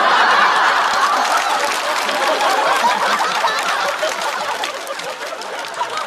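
Studio audience laughing and clapping in response to a stand-up punchline, loudest at the start and slowly dying down.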